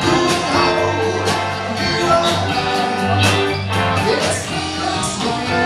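Live rock band playing through a PA: electric guitars, bass guitar and drums, with regular drum hits over sustained bass notes.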